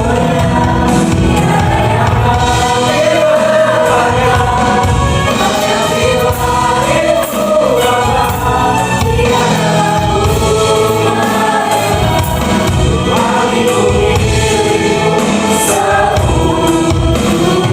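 Gospel worship music: a choir singing over a band with a steady beat.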